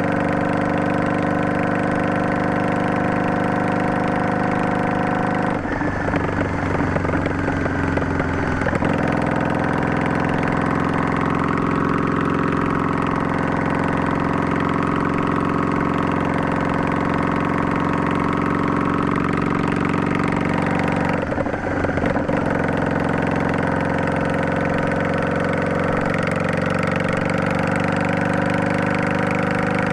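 Yamaha DragStar 400's air-cooled V-twin heard through an aftermarket Garage T&F Bent Muffler Type 2 with a luxury inner silencer, running steadily while riding along with slow shifts in pitch. The steady note breaks up twice, for about three seconds from around six seconds in and briefly around twenty-one seconds in.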